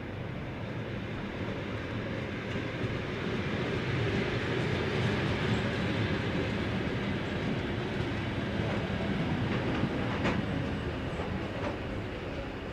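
ED9M suburban electric multiple unit rolling past close by: a steady rumble of wheels on rail that grows louder over the first few seconds, then a few sharp clicks near the end.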